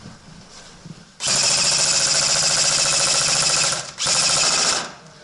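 Airsoft electric gun firing on full auto in two bursts, a long one of about two and a half seconds and a short one just under a second: a rapid, even rattle of motor, gearbox and shots, close by.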